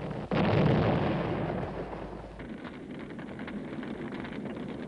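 A loud explosion, like a shell burst, about a third of a second in. Its rumble dies away over about two seconds into a lower background of faint crackling battle noise.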